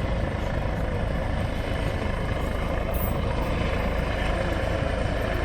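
Helicopter hovering overhead during a winch transfer, its rotor and engine noise a steady, unbroken din.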